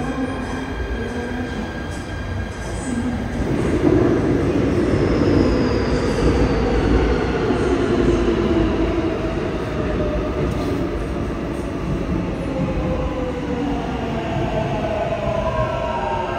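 Seoul Subway Line 7 electric train pulling into the station and braking to a stop, its motor whine falling in pitch over the rumble of wheels on rail. The running noise swells about four seconds in, then settles to a steady hum.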